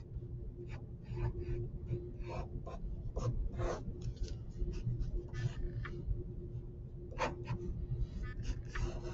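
Wooden graphite pencil drawing on a sheet of paper on a desk: short, irregular scratchy strokes as lines are sketched and shaded in.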